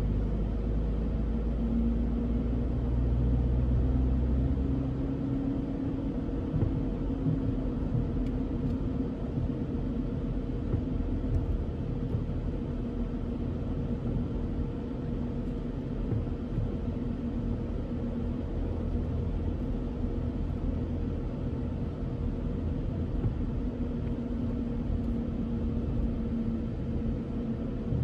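Road noise inside a moving car's cabin: a steady low rumble of tyres and engine with a faint steady hum, a little louder for the first few seconds.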